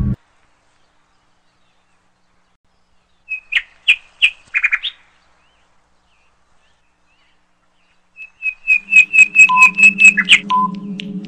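A quiz countdown-timer sound effect: a fast run of high chirping ticks over a steady low hum, with a short beep about once a second, starting about eight seconds in. Before it, a few seconds of silence broken by a brief cluster of high chirps.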